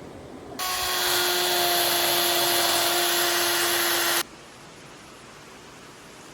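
A handheld electric power tool runs for about three and a half seconds: a steady motor whine over a loud rushing hiss, switched on and off abruptly.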